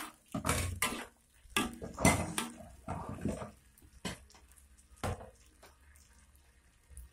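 Metal spatula scraping and clattering against a wok as squid and spring onion are stir-fried: a quick run of strokes for the first three and a half seconds, then two single knocks about four and five seconds in.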